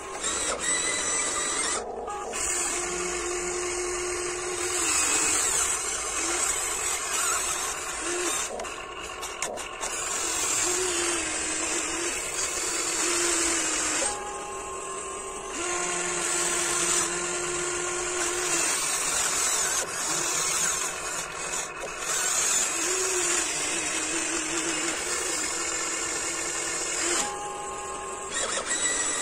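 Huina 1594 remote-control excavator's small electric motors and gears whining as it works. The whine shifts in pitch and character every few seconds as different motions start and stop.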